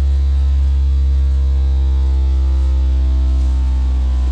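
Kicker CVR 12-inch car subwoofer playing a loud, steady low bass tone with a stack of overtones above it, part of an 80-to-1 Hz test sweep run to measure its peak sound pressure level.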